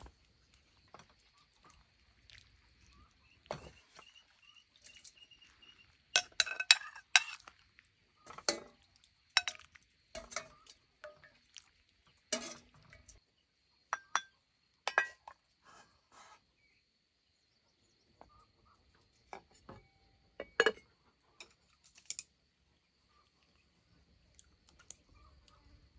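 Scattered clinks and knocks of dishes and utensils being handled, a cluster of them about six seconds in and a few more later on, over a faint steady high-pitched whine.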